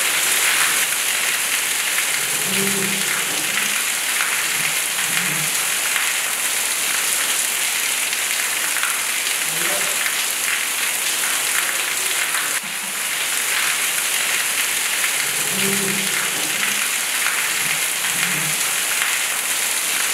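Steady, dense rain heard from inside a traditional Kerala house, an even hiss of water with a brief dip in level about two-thirds of the way through.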